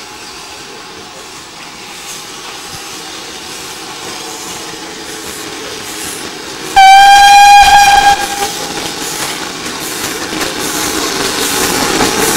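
A GWR steam locomotive's whistle gives one loud blast of about a second and a half, about seven seconds in. Afterwards the rail noise of an approaching tank engine grows steadily louder.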